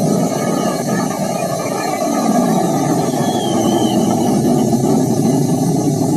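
Jet airliner engines running, a loud steady rushing noise with no breaks, and a faint short whistle about three seconds in.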